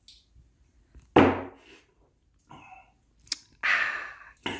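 A whisky glass tumbler set down on a wooden workbench with a single thunk about a second in, then a sharp click and a breathy exhale after a swallow of whisky.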